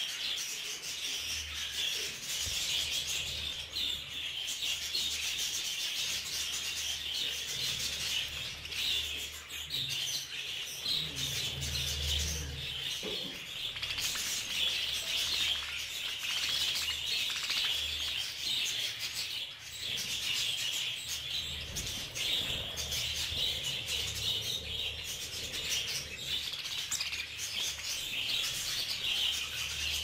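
A flock of budgerigars chattering and chirping without a break while they feed.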